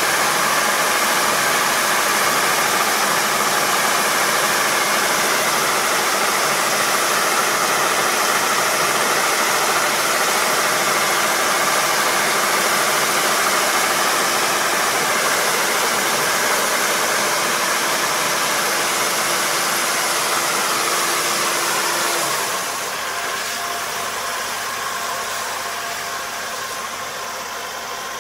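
Kubota ER470 four-row combine harvester running, its engine and machinery giving a loud, even noise with a steady hum. About three-quarters of the way through the sound drops in level and one steady tone stops, then it eases off a little further.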